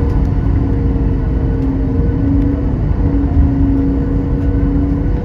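A vehicle running steadily: a deep rumble with a hum held at one pitch throughout.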